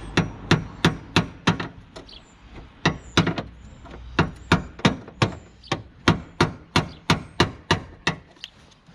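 Repeated hammer blows, about three a second in three runs with short pauses, knocking a bent nose panel back out into shape.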